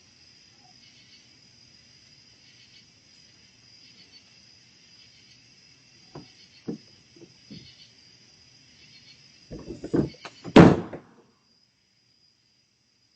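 Bear knocking over a bear-resistant garbage can: a few light knocks about six seconds in, then a run of heavy thuds ending in one loud crash about ten seconds in. Crickets chirr steadily underneath.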